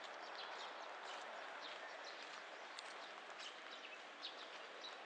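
Steady rain falling, with many short, high-pitched ticks and chirps scattered through it.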